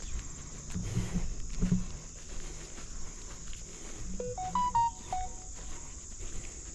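Footsteps through marsh ground and vegetation over a steady high-pitched insect chorus of crickets. About four seconds in, a brief run of half a dozen clear pitched notes steps up and down in pitch.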